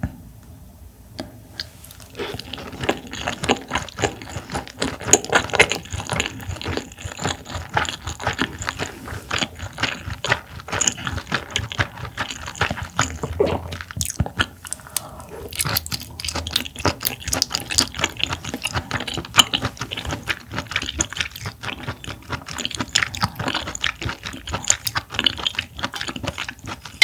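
Close-miked chewing of raw clam sushi: a dense run of wet mouth clicks and smacks that starts about two seconds in and keeps going.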